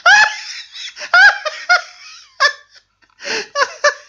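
A person laughing in several loud bursts with short pauses between them.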